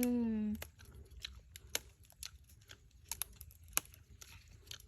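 A short hummed "mm", then scattered small crackles and sharp clicks, like material being torn or crumpled by hand.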